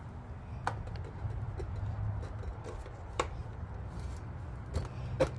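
Small red potatoes being handled and set down on a table: four short sharp knocks, the loudest near the end, over a low rumble of handling noise.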